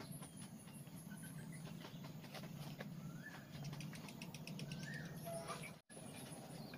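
Quiet background of birds chirping, with short rising calls and high twittering, over a steady low hum. Faint light clicks come from bamboo pieces being handled.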